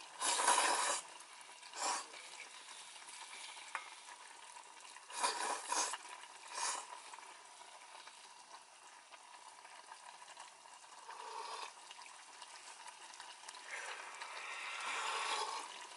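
A pot of noodles in soup cooking on a camp stove with a steady sizzle, broken several times by louder swishing bursts as the noodles are stirred and scooped.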